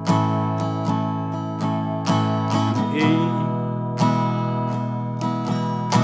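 Acoustic guitar strummed slowly in down-up strokes, moving between open E and A chords and letting each strum ring. The strums come about twice a second, and the chord changes about two seconds in and again about four seconds in.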